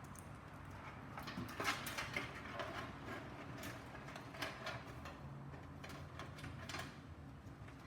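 Spare power-supply cables being pushed into the back of a PC case: irregular light clicks, knocks and rustles as the cables and connectors bump against the case.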